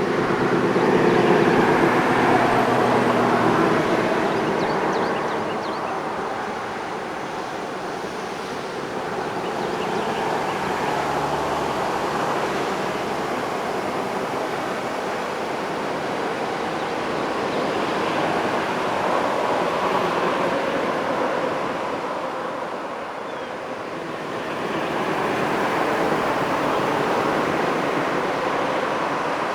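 Road traffic going past at the roadside: cars passing one after another, each swelling up and fading away, about four passes in all, the loudest one near the start.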